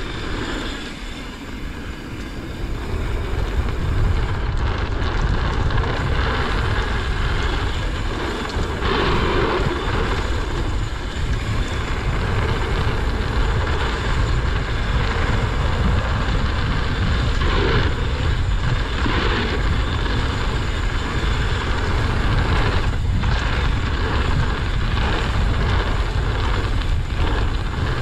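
Mountain bike descending a packed-dirt trail: wind buffeting the microphone in a steady low rumble over the rolling hiss of the tyres, with a few short rattles and knocks from the bike over bumps.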